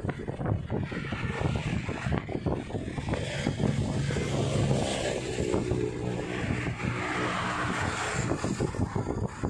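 Road traffic on a steel truss bridge: cars and a motorcycle driving past, with engine and tyre noise throughout. One vehicle's engine note stands out as it goes by about halfway through.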